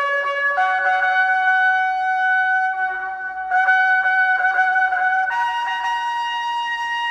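Instrumental music: a trumpet-like wind instrument plays a slow melody of long held notes, stepping upward, with a new note about half a second in, another past the middle, and a higher one a little after that.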